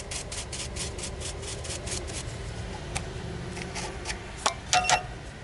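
Quick, regular brushing strokes, about five a second, cleaning the SEC-E9 key-cutting machine after a cut, fading out after about two seconds. A few light metallic clicks near the end.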